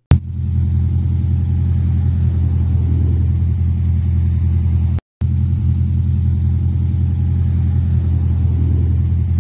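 1970 MGB roadster's 1.8-litre four-cylinder engine idling at a steady, even pitch. The engine is said to have about 300 miles since an overhaul. The sound cuts out for a moment about five seconds in.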